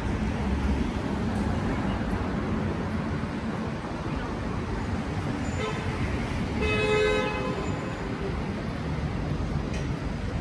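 Steady city street traffic noise, with a vehicle horn sounding a short toot and then a longer one lasting about a second, around six to seven seconds in.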